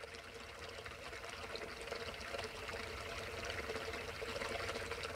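Water pouring over rocks into a foamy pool, a steady gurgling wash that grows slowly louder.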